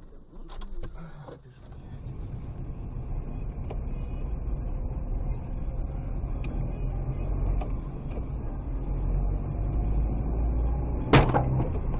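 Steady engine and road rumble heard from inside a moving car. About eleven seconds in comes a single sharp, loud bang, the sound of a collision, with ringing after it. A few knocks come in the first second or two.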